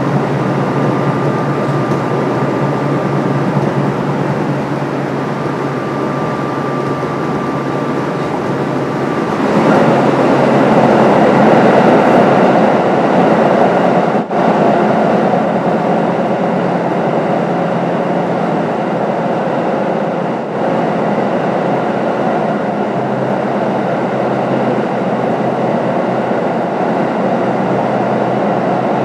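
Kintetsu 7000 series electric train running between stations: steady rail running noise of wheels and traction motors, growing louder and rougher about ten seconds in.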